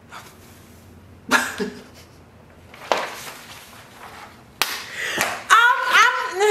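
A few short handling noises and a sharp knock about four and a half seconds in. Near the end, a woman's wordless rising vocal sounds, laughing.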